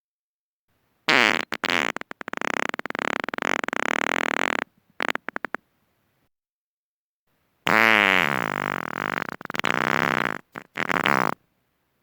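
Two long human farts. The first sputters with many quick breaks and ends in a few short puffs. The second opens on a falling pitch, then sputters and breaks off into short puffs near the end.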